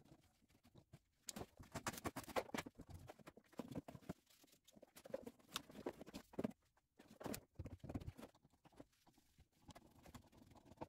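Irregular light knocks, clicks and rattles of car parts and tools being handled during hands-on work on the car, most of them between about a second in and two-thirds of the way through.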